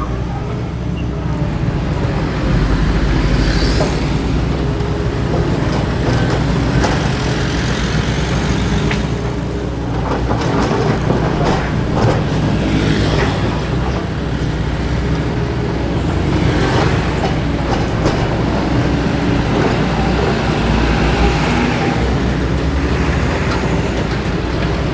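Diesel engine of a Doosan DX225LCA excavator running steadily while it works, with a few sharp knocks about halfway through.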